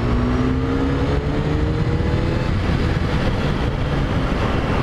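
Honda CBR600F4i inline-four engine pulling hard under acceleration, its pitch climbing for about two and a half seconds and then fading, over heavy wind and road rumble. This is a test run for a high-rev fault that the rider suspects is a lean mixture from fuel not arriving at high revs; the fuel-injection warning light does not come on this time.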